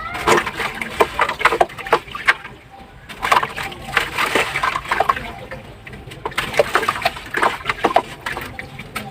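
Dry slabs crumbling apart in water: crackly crunching and splashing in three spells of about two seconds, with short pauses between.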